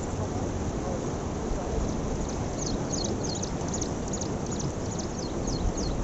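Rushing canal water and wind on the microphone, a steady noise. From about two and a half seconds in, a bird calls in a quick series of short, high, falling chirps, about three a second.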